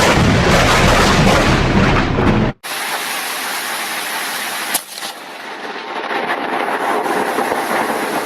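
Thunderstorm: loud thunder rumbling over rain, which cuts off suddenly a little over two seconds in. A steady rain hiss follows, with one sharp crack near the middle.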